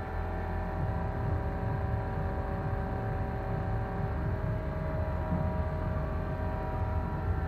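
Goodway GS-280 LMY CNC lathe powered on and idling with its chuck at rest: a steady machine hum of several whining tones over a low rumble.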